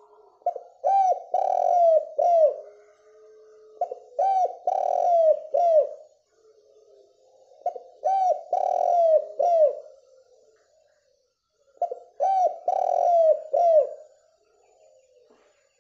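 Spotted dove cooing: four phrases in a row, each a short note, a longer drawn-out coo and one or two short closing notes, repeated about every four seconds.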